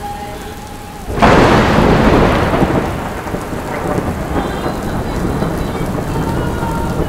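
Steady heavy rain, with a sudden loud thunderclap about a second in that rolls off over the next two seconds while the rain goes on.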